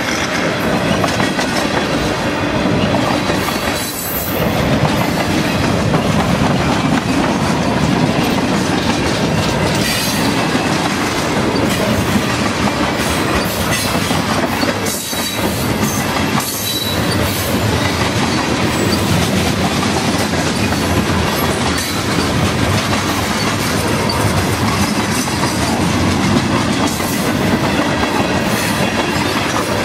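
Freight train tank cars rolling past close by, steel wheels drumming on the rails with a steady clickety-clack over the rail joints.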